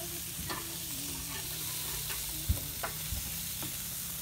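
Hamburger patties sizzling on a gas grill, a steady frying hiss, with a few light clicks and one sharp knock about two and a half seconds in.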